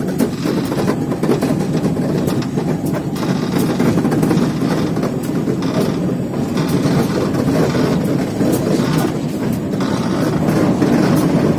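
Pakistan Railways RGE-20 diesel-electric locomotive under way, heard from inside its cab: a steady, loud running rumble with quick sharp clicks of the wheels over the rails.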